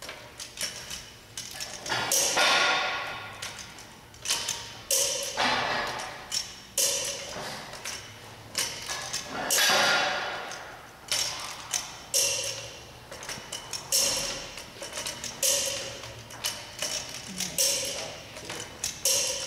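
Torque wrench and socket on a car wheel's lug nuts, tightening them to 97 foot-pounds: a series of sharp metallic clicks and ratcheting strokes, about a dozen spread unevenly, with light ticking between them.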